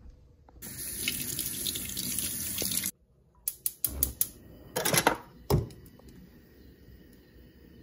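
Kitchen tap running for about two seconds, then cut off abruptly. After it come several sharp clicks and knocks.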